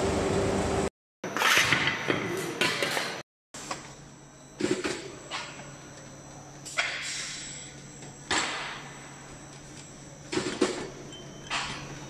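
Aluminium ingot stacking line running: a steady electric-motor hum under sharp metallic clunks and clanks that come every one to two seconds as the conveyor and stacker move the ingots. It opens with a few seconds of loud rushing noise from the casting machine, broken by two brief dropouts.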